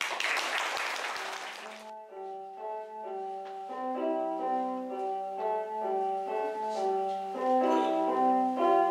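Audience clapping for about two seconds. Then an electronic keyboard played with a piano sound: a slow melody over held bass notes, getting louder near the end.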